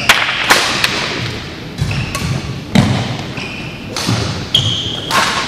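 Court shoes squeaking on a sports-hall floor several times, short high squeaks, mixed with about half a dozen sharp knocks and thumps.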